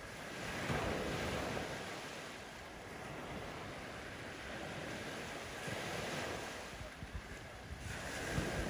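Ocean surf washing in, a steady rush that swells and eases every few seconds.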